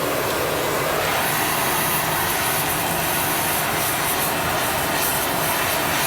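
Gas torch burning with a steady hiss as it heats a steel bucking dog for hardening; about a second in a sharper, crackling high hiss joins it.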